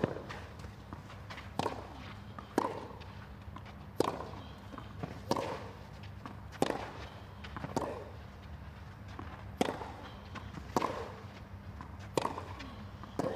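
Tennis ball struck back and forth by racquets in a long baseline rally: about ten sharp hits, roughly one every second or so, each with a short echo.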